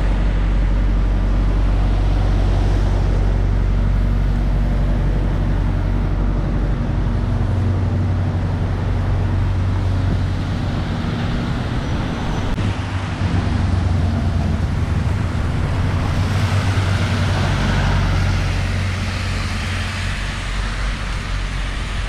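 Road traffic on a wet road: a red double-decker bus's diesel engine running close by, under a steady low drone, with tyres hissing on the wet tarmac as vehicles pass.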